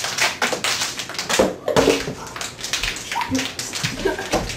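Plastic bottle crackling and crunching as it is twisted hard to compress the air under its cap, with a short vocal sound about a second and a half in.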